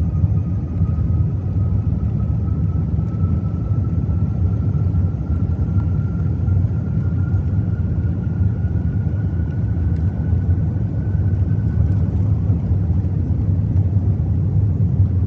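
Airbus A380's four Rolls-Royce Trent 900 engines at takeoff power: a loud, steady low rumble, with a faint whine that rises slowly in pitch and fades about twelve seconds in.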